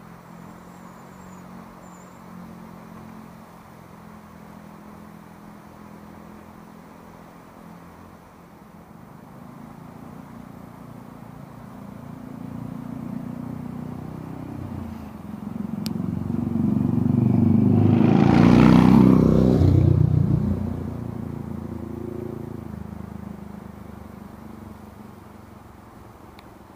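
A motor vehicle's engine approaching along the road and passing close by. It swells to its loudest about two-thirds of the way through, drops in pitch as it goes past, then fades away.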